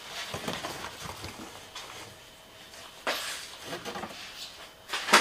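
Old rubber hatch weatherstrip being pulled off the edge of a C5 Corvette's cargo-hatch opening, with rubbing and scraping as the seal comes away and a sharp click near the end.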